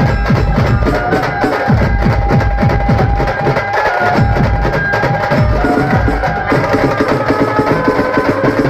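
Maharashtrian banjo band music played loud: a melody in long held notes over fast, dense drumming, with deep drum strokes that drop in pitch after each hit.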